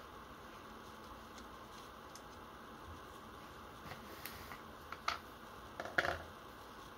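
Light clicks and clinks from handling a model single-action revolver and its dummy cartridges. There are faint ticks about four seconds in, a sharper click a second later, and a short cluster of louder clicks near the end, which is the loudest part.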